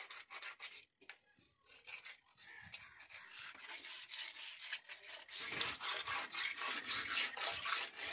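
Small kewai (climbing perch) fish being rubbed and scraped by hand against a wet, rough concrete floor: a rasping scrape of many quick strokes. It breaks off for about a second near the start, then grows louder and denser from about halfway through.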